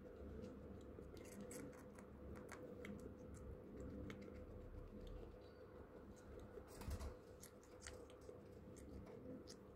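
A guinea pig biting and chewing a slice of tomato: faint, irregular little clicks and crunches, over a faint steady hum.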